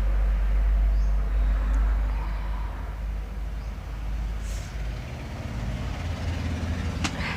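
A steady low mechanical hum, like an idling engine, that shifts about five seconds in. A brief high hiss comes about halfway through and a sharp click near the end.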